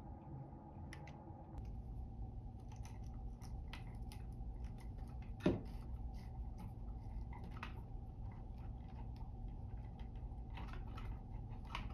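Plastic twist-on wire nuts being screwed onto copper wire ends: a run of small scattered crunching clicks, with one sharper click about five and a half seconds in.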